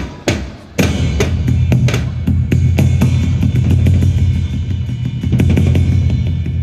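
Live drum kit: two separate hits, then just under a second in the full kit comes in with fast, continuous drumming. Cymbals ring over a heavy low rumble.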